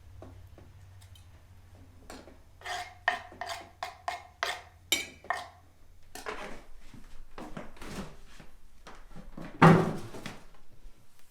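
Kitchenware being handled: a quick run of sharp, ringing clinks of dishes and utensils, then shuffling and scraping, with one loud knock near the end.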